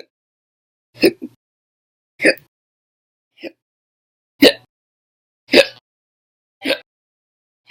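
A person hiccupping over and over, about seven short, sharp hiccups at roughly one a second, most of them loud and a couple faint.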